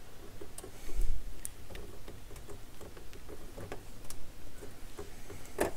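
Light clicks and taps of a Dual CS 607 turntable's removable headshell being handled and fitted onto the end of the tonearm, with one sharper click near the end.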